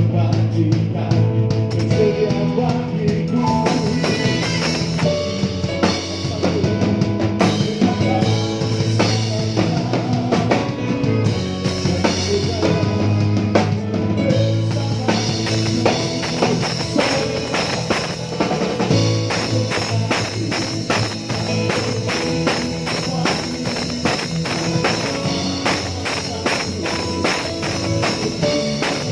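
Live worship band playing a praise song, with the drum kit prominent: kick, snare and cymbals under bass and guitar. About halfway through, the drumming fills out with steady cymbal work.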